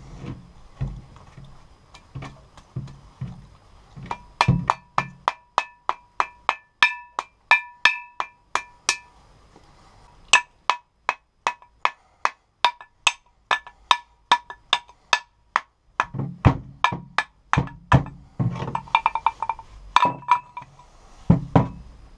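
Old forged-steel axe head being knocked repeatedly to drive the rotted wooden handle remains out of its eye: quick sharp knocks about three a second, each with a short metallic ring. Duller wooden thuds come in the first few seconds and again near the end.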